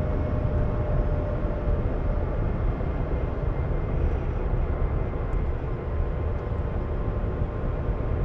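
Renault Twizy electric quadricycle driving at steady speed: heavy tyre and wind rumble with a thin, steady electric-motor whine over it.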